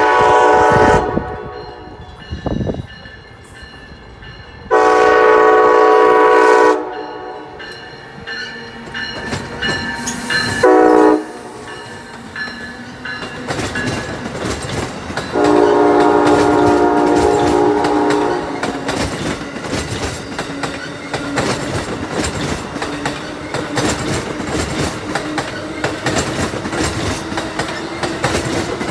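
Amtrak Northeast Regional train's multi-note air horn sounding four blasts in a long, long, short, long pattern as it passes, followed by the Amfleet coaches rolling by with a steady clickety-clack of wheels on rail joints.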